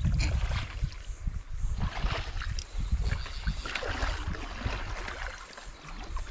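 A hooked rainbow trout splashing in shallow river water as it is drawn in to the landing net, with water gurgling, over a low rumble of wind on the microphone.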